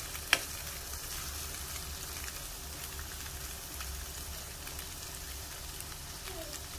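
Diced firm tofu (tokwa) sizzling as it fries in oil in a pan, with a steady hiss and a metal ladle scraping and clinking against the pan as it is stirred; one sharp clink of the ladle near the start.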